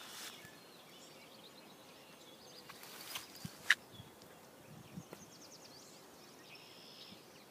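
Quiet rural field ambience with faint birds chirping and trilling now and then. A single sharp click about halfway through is the loudest sound.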